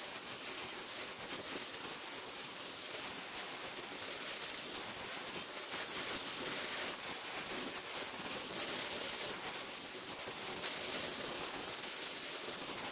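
Oxy-fuel torch with a cutting tip hissing steadily, its flame held on steel tubing to heat it red hot for bending.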